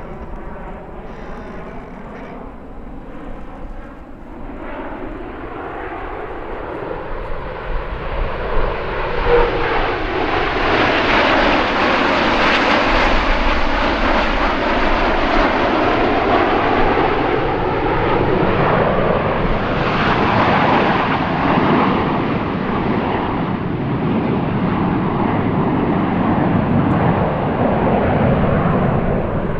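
Turbojet engines of CT-114 Tutor jets flying past. The jet noise builds over the first several seconds and then stays loud, with a sweeping shift in tone as the aircraft move.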